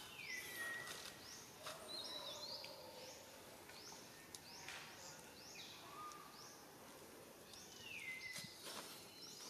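Faint forest ambience with a bird calling: a short high note repeated many times, and a descending whistle at the start and again about eight seconds in.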